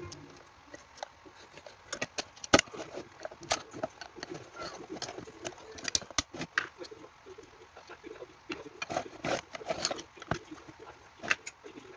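Irregular clicks, taps and light rattles of small parts and tools being handled during disassembly of a scooter's control box, with one sharper knock about two and a half seconds in.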